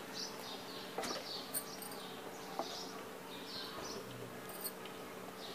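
Faint high chirping repeating about every half second, with a low steady hum and a couple of soft clicks about one and two and a half seconds in. The mixer grinder is switched off, its jar open.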